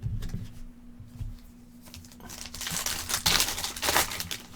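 A trading-card pack's foil wrapper crinkling as it is torn open, loudest from about two seconds in for roughly two seconds, after a few light handling knocks.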